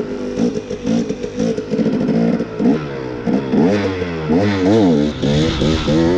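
Dirt bike engine running while being ridden, fairly steady at first, then revving up and down repeatedly from about halfway through as the throttle is worked.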